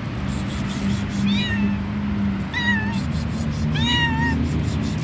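A hungry cat meowing three times, short high meows a little over a second apart, over a steady low hum.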